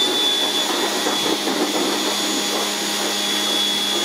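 Pressure washer running with a steady high motor whine while its jet sprays water onto a plastic engine cover.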